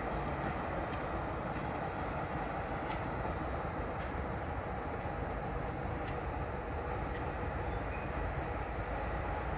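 Passenger train hauled by a CFR class 060-EA electric locomotive approaching in the distance, giving a steady low rumble and hiss.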